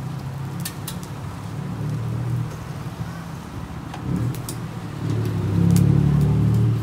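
A motor vehicle's engine running close by, a steady low hum that grows louder about five seconds in as it nears. A few short sharp clicks sound over it.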